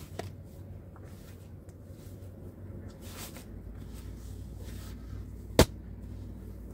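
One sharp knock about five and a half seconds in, over a steady low rumble, with a fainter click near the start.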